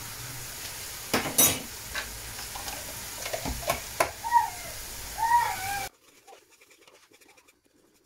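Curry sauce simmering and sizzling in an aluminium pot on a gas hob, with a couple of sharp clinks of the metal spoon against the pot. A few short wavering voice-like cries sound in the background, and the sizzle cuts off suddenly about six seconds in.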